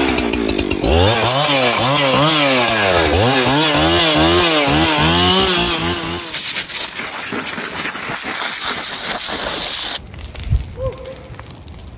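Two-stroke chainsaw revved up and down again and again in quick throttle blips, then held at a steady speed. It cuts off abruptly near the end.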